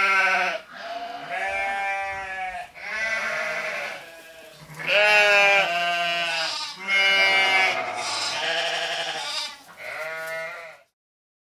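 Sheep and goats bleating: about seven loud, quavering bleats follow one another in quick succession, then the sound stops abruptly near the end.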